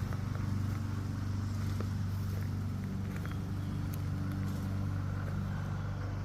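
Concrete mixer truck's diesel engine running steadily, with a few light clicks over it.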